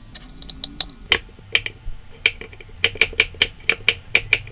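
Chef's knife slicing a Korean radish and then a cucumber into strips, striking a wooden cutting board with sharp knocks. The knocks are sparse at first and quicken to several a second near the end.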